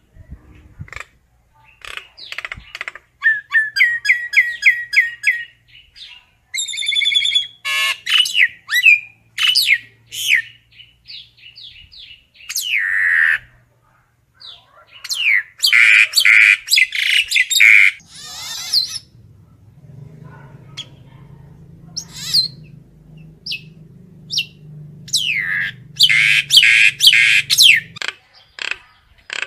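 Common myna (Acridotheres tristis) calling, the flock-gathering call: a varied run of quick chirps, gliding whistles, gurgling rattles and harsh squawks, in phrases with short gaps between them. A low steady hum runs beneath the calls for about ten seconds in the second half.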